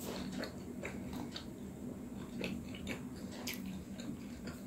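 Close-miked chewing of a steamed momo: irregular soft wet mouth clicks and smacks over a steady low hum.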